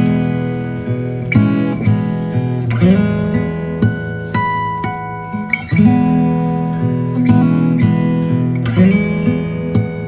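Background music: acoustic guitar strumming chords, a new chord struck about every second and a half.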